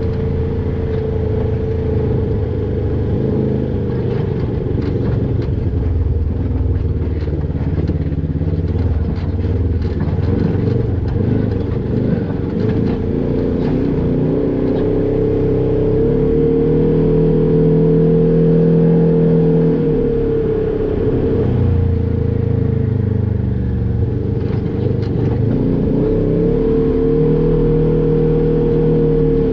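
Polaris RZR XP 1000 side-by-side's twin-cylinder engine running at low revs while rock crawling, its pitch rising and falling with the throttle. Scattered clatter and knocks, mostly in the first half and again near the end.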